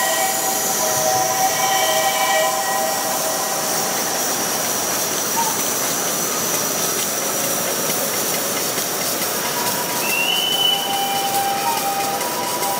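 Large-scale live steam model locomotive running on track: a steady hiss of steam, with thin squealing tones that come and go.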